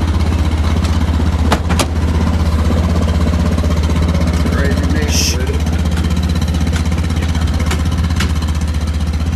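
Axis 750 4x4 utility vehicle's engine idling steadily, with a few light clicks and a brief hiss about halfway through.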